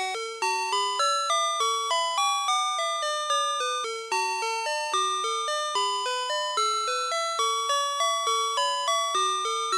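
VTech Alphabert's Sonic Phonix electronic learning toy playing one of its built-in songs in chiming, bell-like synthesized tones. The notes step along about four a second, a tune over a lower part that keeps returning to the same few notes.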